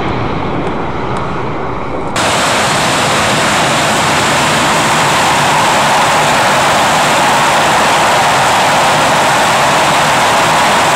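Twin Rolls-Royce Avon turbojets of an English Electric Lightning running: a steady jet rush that jumps abruptly about two seconds in to a much louder, closer, even roar.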